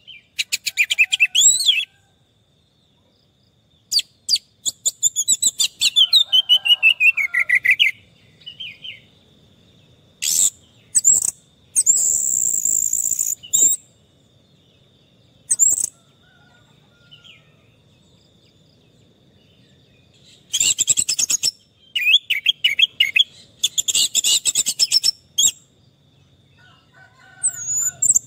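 Orange-headed thrush in full song: loud bursts of rapid, varied phrases a few seconds apart, some with whistled notes sliding downward, separated by short pauses.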